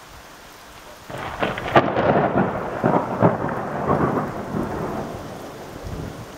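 Thunder over steady rain: about a second in, a loud peal breaks out with several sharp cracks, rumbles on for about four seconds and fades away.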